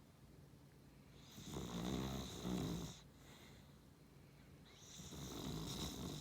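A beagle × Cavalier King Charles Spaniel cross dog snoring: two long snores, the first starting about a second in and louder, the second near the end, each with a hissing edge over the low rumble.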